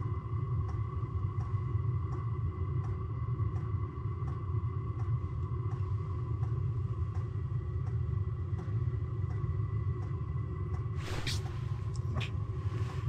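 A steady low rumble with a faint, steady electronic whine and soft ticks at an even pace, about one and a half a second. Near the end come two or three brief rustles.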